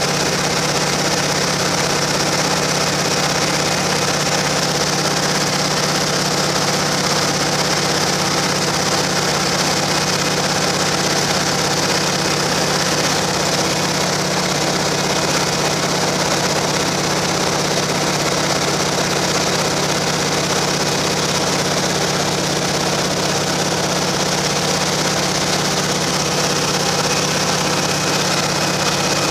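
Noorduyn Norseman's radial engine and propeller droning steadily in cruise flight, mixed with a constant rush of wind.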